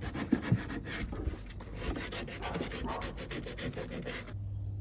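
Hand sanding of a red moulded-plastic ride-on toy car's body with a yellow sanding pad, rubbed back and forth in quick repeated strokes. The sanding cuts off abruptly near the end.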